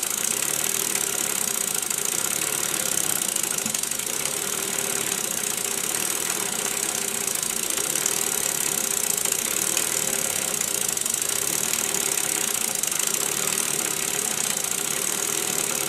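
Small model steam engine with a double-acting oscillating cylinder running steadily and fast: a constant hiss of steam with the mechanical running of the cylinder and the 30-to-1 worm drive turning the gear wheel. The builder wonders whether the worm is slightly binding on the wheel.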